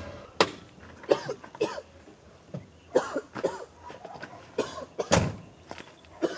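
A man coughing in a string of short, hoarse coughs spread across a few seconds, some with a voiced catch in the throat.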